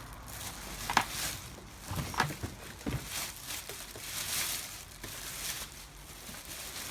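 Plastic packaging crinkling and rustling as a new car headlight is handled and unwrapped, with a few sharp clicks and knocks about 1, 2 and 3 seconds in.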